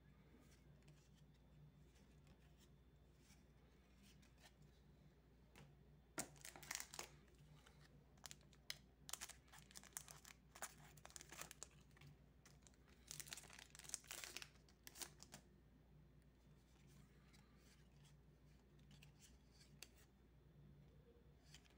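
Foil Magic: The Gathering booster pack wrapper being torn open and crinkled by hand: a run of sharp crackling rustles starting about six seconds in and lasting roughly ten seconds. Before and after it, only faint rustling of cards being handled.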